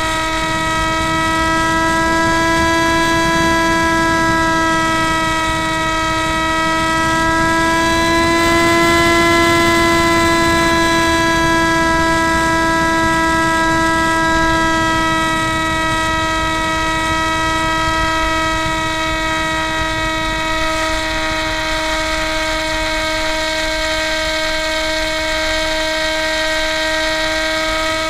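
Electric motor and propeller of a Spyhawk RC plane whining at a steady pitch in flight, picked up by the onboard keychain camera's microphone along with rushing air noise. The pitch rises slightly about eight seconds in, then settles back.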